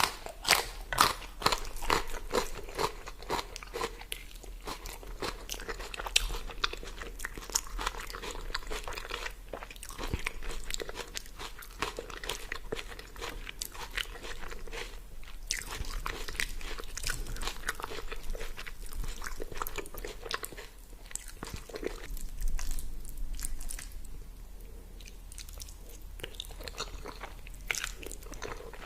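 A person biting and chewing crunchy food close to the microphone. There are many crisp crunches, thickest in the first few seconds and more spaced out later.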